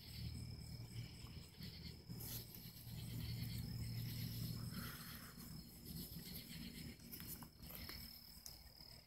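Crickets trilling steadily in one high, unbroken tone, over a low rumble that swells about three seconds in.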